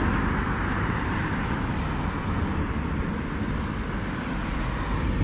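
Steady low rumble with a hiss of outdoor background noise, with no distinct events.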